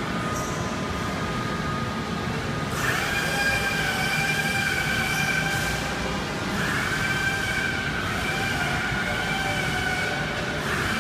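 Pistorius SCNC-16 16-inch miter saw running: a low steady hum, then about three seconds in a high, steady whine of several tones sets in. The whine dips and starts up again about halfway through and once more at the very end.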